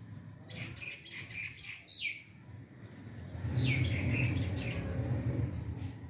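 Caged small parrots chirping in two quick runs of short calls, one about half a second in and one about three and a half seconds in. Under them runs a low steady rumble that gets louder partway through.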